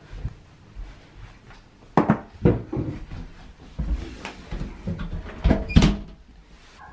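A series of close knocks and thumps, about five. The loudest come around two seconds in and a pair just before six seconds.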